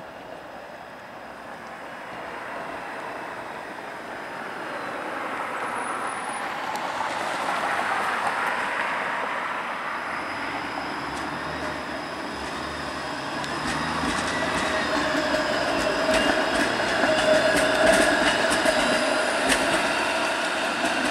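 A Flexity Outlook low-floor electric streetcar pulling away and passing close, its running sound growing steadily louder as it nears. It is loudest a little before the end, with a steady mid-pitched whine and a run of sharp clicks from the wheels on the rails as it goes by.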